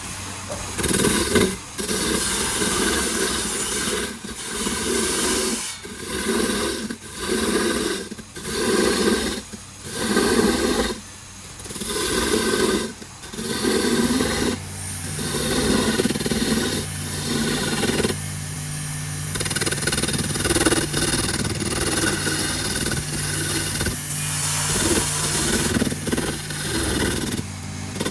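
Wood being worked with a power tool: a steady motor hum under repeated scraping or sanding strokes, about one a second, running together into longer passes in the second half.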